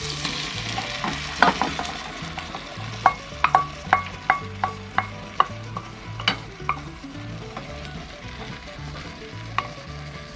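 Onions, garlic and mushrooms sizzling in butter in a pan while being stirred, with a quick run of ringing taps of a utensil against the pan between about three and seven seconds in.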